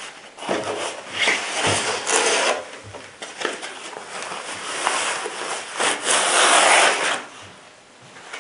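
A soft white protective wrap rubbing and rustling as it is pulled and unrolled off a riflescope. The rubbing comes in three bursts, the last the loudest, and stops a little before the end.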